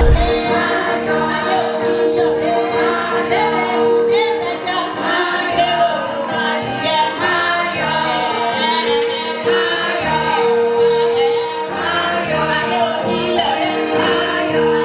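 Gospel choir singing with band accompaniment and a steady high percussion beat. A brief low thump sounds right at the start.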